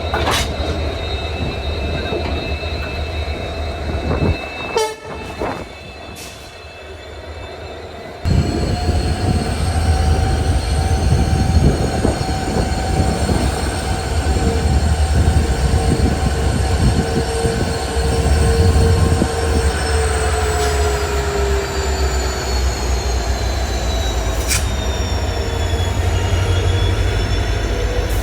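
Poorna Express passenger train running on the Braganza Ghat section, its wheels squealing on the curves: several long, steady high tones that slowly slide in pitch, over the low rumble of the coaches. The sound drops away for a few seconds, with a few sharp clicks, and comes back loud about eight seconds in.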